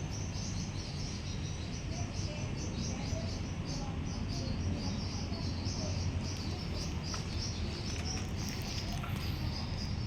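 Insects chirping in a continuous run of fast, repeated high pulses, over a steady low rumble.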